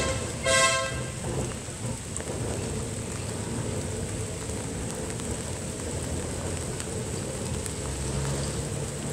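Tram bell rung twice in quick succession as Leeds tram 399 moves off, followed by a steady hiss of rain with a low rumble from the tram rolling away along the track.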